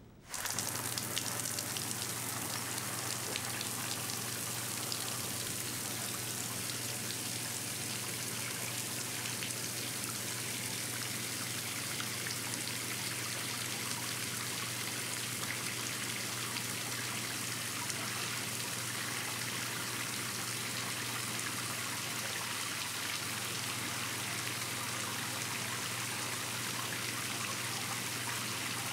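Shower running, a steady hiss of water spraying down, which comes on suddenly at the start, over a low steady hum.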